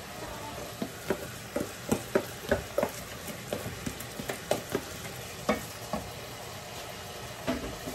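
Vermicelli frying in oil in a pot with a steady sizzle, stirred with a spoon: a string of short, irregular scrapes and taps against the pot, thinning out near the end.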